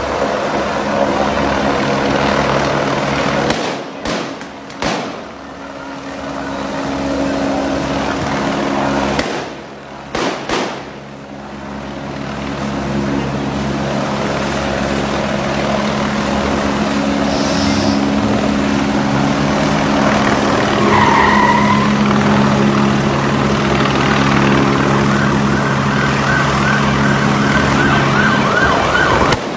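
A steady engine drone under wind-like noise, which drops away briefly twice early on. About two-thirds in there is a short siren-like whoop, and near the end a fast repeating warble.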